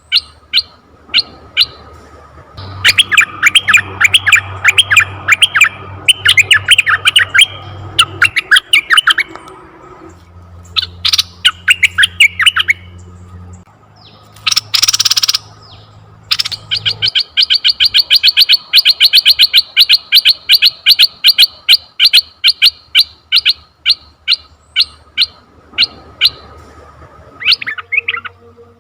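Asian red-eyed bulbul calling: fast runs of sharp chirping notes, several a second, in bursts separated by short gaps. A short noisy burst comes about halfway through.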